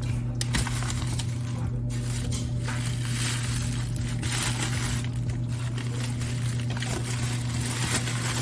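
Kitchen clatter: light clinks of glass and containers being handled, over a steady low hum.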